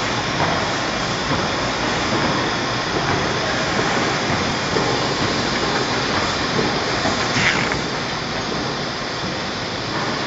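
Paper guillotine running with a steady rushing hiss, with a brief sharper hiss about seven and a half seconds in.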